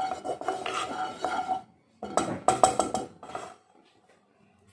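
A wooden spatula scrapes and knocks around a nonstick frying pan, spreading ghee. It comes in two spells of scraping and clatter and stops about three and a half seconds in.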